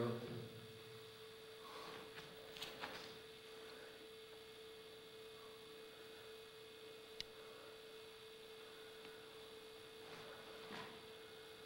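Faint, near-quiet background with a single steady hum tone running throughout, broken by a few faint clicks; the sharpest click comes about seven seconds in.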